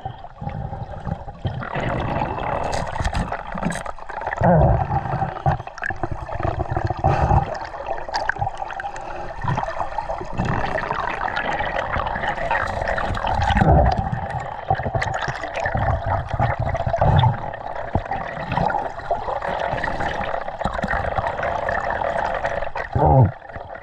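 Muffled underwater river noise heard through a GoPro's waterproof dive housing: continuous gurgling water movement, with several dull knocks.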